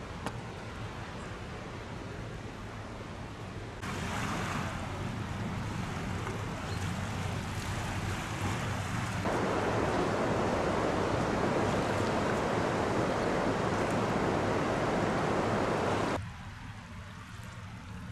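Steady rushing noise of a river in flood, swollen by rain and melting snow. It steps louder about four and nine seconds in and drops off abruptly after about sixteen seconds.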